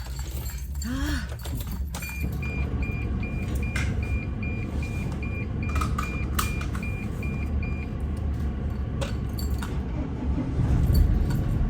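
Keys rattling and clicks, then the van's engine starts about two seconds in and runs steadily at idle. Over it, a dashboard warning chime gives about fifteen quick, even beeps over six seconds, then stops.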